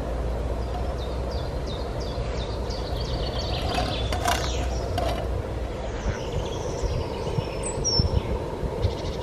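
Portable gas canister stove burner running with a steady rumbling hiss under a hot, smoking steel frying pan being seasoned with oil. Birds chirp in the background, with a run of short chirps early on and a few falling whistled notes later.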